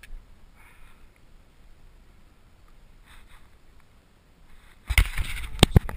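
Handling noise as a caught bass is unhooked and held: a loud burst of rustling and several sharp knocks close to the microphone, starting about five seconds in, after a few quiet seconds.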